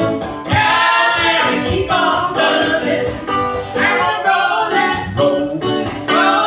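A woman singing a melody in held, gliding notes, accompanied by an archtop electric guitar, played live.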